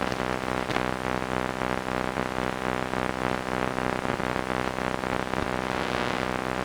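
A steady mechanical drone made of several low hum tones, pulsing evenly about five times a second.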